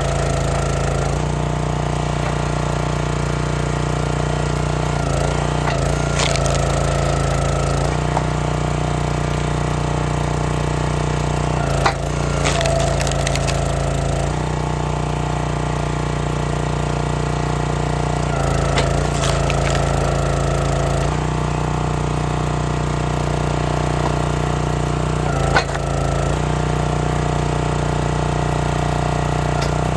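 Small gas engine of a log splitter running steadily, its note changing every few seconds as the ram loads up and releases, while cherry rounds split. Two sharp loud cracks stand out, one about halfway through and one near the end.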